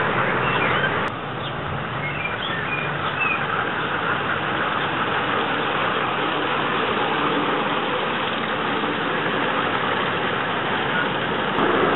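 Ride-on miniature railway train running along the track, giving a steady rolling noise of wheels on rails. A few short bird chirps come through in the first few seconds.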